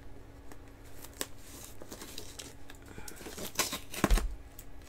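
A taped mailing package being picked and torn at by hand: scattered crinkles, rustles and small clicks, growing busier near the end with a low thump about four seconds in.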